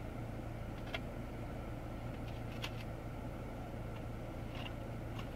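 Steady low hum of a car heard from inside the cabin, with a few faint ticks.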